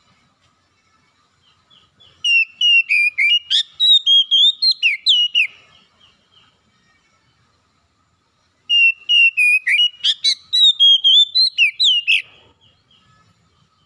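Oriental magpie-robin (kacer) singing: two loud phrases of rapid, varied whistled notes that slur up and down, each about three and a half seconds long, with a pause of about three seconds between them.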